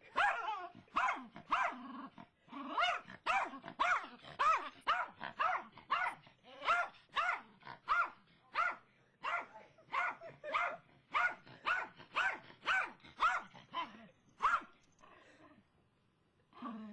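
Dog barking in a rapid, steady run, about two barks a second, excited by a squirrel it has spotted. The barking stops a couple of seconds before the end.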